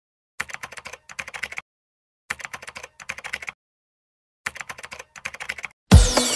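Computer-keyboard typing sound effect: three runs of rapid key clicks, each about a second long with a short break in the middle, separated by silence. Loud music with a falling sweep and deep bass thumps comes in near the end.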